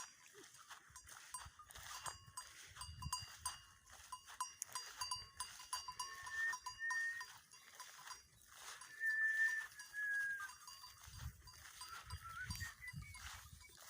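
A herd of goats grazing, with small bells on them clinking irregularly. A few short high whistled notes come around the middle.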